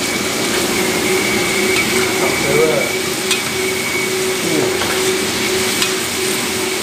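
Squid, green beans and chilies sizzling in a wok as a spatula stirs and scrapes them, with a few short clicks of the spatula against the pan. A steady hum runs underneath.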